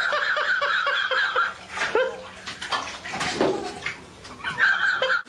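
Bathwater splashing and sloshing in a full bathtub, in uneven bursts.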